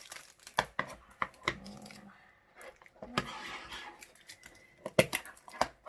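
Handling of a plastic-wrapped diamond painting pencil box: a scattering of sharp clicks and taps with some crinkling, two of the clicks loud about five seconds in.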